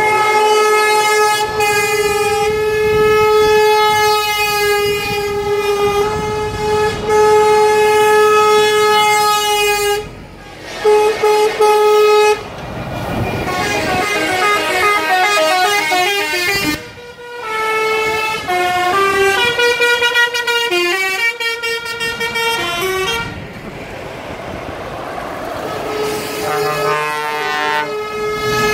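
Trucks' air horns sounding as a convoy of lorries drives past, over the run of diesel engines. Long held horn blasts come first; after a short break, around the middle, several horns play notes that change pitch in quick steps, and another long blast sounds near the end.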